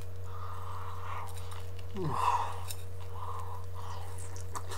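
Close-up chewing and mouth noises from a man eating a syrup-covered Eggo waffle, with a few light clicks. A steady low electrical hum runs underneath.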